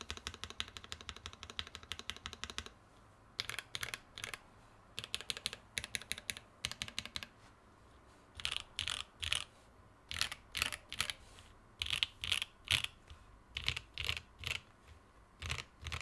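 Typing on a Satisfaction75 custom mechanical keyboard with lubed and filmed SP-Star Meteor White linear switches on an FR-4 plate. It opens with a quick run of keystrokes, then short bursts with pauses, and in the second half slower, separate, louder key presses.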